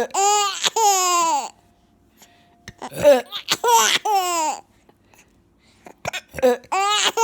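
A baby laughing in three bouts of high, long squeals that fall in pitch, with quiet gaps between.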